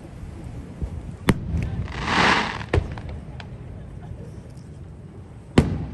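Fireworks shells bursting overhead: sharp bangs about a second in, near three seconds and the loudest near the end, with a short hissing burst around two seconds.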